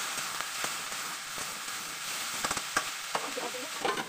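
Cauliflower and potato pieces sizzling in hot oil in a steel kadhai. A spatula stirs them, scraping and clicking against the pan several times.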